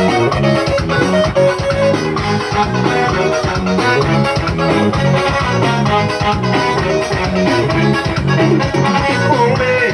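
Instrumental passage of upbeat Amazonian beiradão dance music with a steady beat, bass and guitar.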